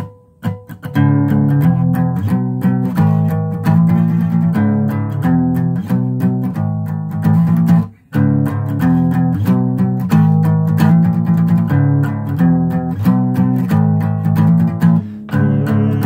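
Guitar strumming chords in a steady rhythm, the instrumental opening of a song, after a single plucked note at the start; the playing stops for a moment about eight seconds in, then carries on.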